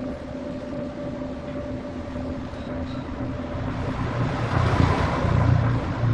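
A homemade power tool's motor running with a steady hum; about four seconds in a louder, rough noise with a low rumble swells up, as if the tool were put to work.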